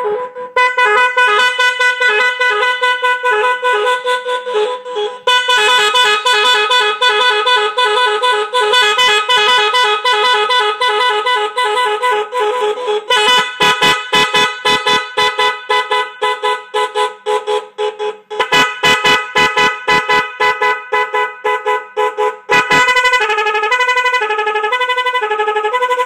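Magic 10 multi-tone electronic car horn, a pair of horns pitched at 410 and 510 Hz driven by a control module, playing its preset sequences as rapid pulsing beeps and alternating two-note runs. It switches to a new pattern several times.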